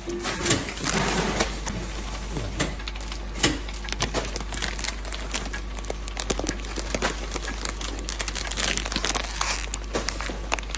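Packaging line running: a steady low hum under many irregular clicks and crinkling. Near the end, the plastic film of a freshly sealed snack bag crinkles as it is picked up and pinched at its seal.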